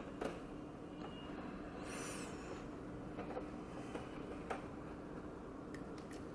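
A few light clicks and a brief scrape, typical of the small metal parts of a vape coil jig being handled, over a faint steady hum.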